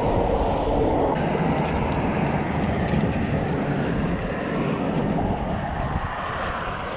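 Steady engine rumble of something passing by, easing off near the end.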